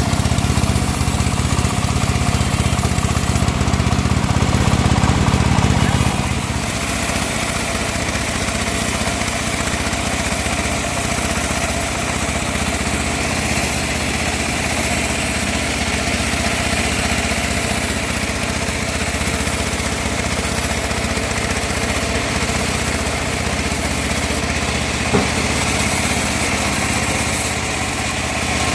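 Home-built bandsaw running steadily while sawing teak, its motor drone louder and heavier for the first six seconds, then settling to a slightly lower steady level. A single short knock near the end.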